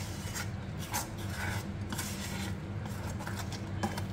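Metal spoon stirring thick gram-flour batter in a stainless-steel pot, with irregular scrapes and clinks against the pot's sides and bottom.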